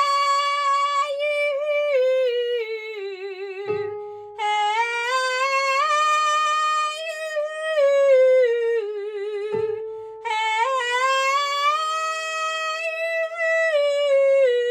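A woman singing the 'up chest, down head' blending exercise in three phrases: each climbs stepwise in chest voice, then comes back down in head voice and ends with vibrato. Short breaks fall between the phrases, and a steady held note sounds underneath.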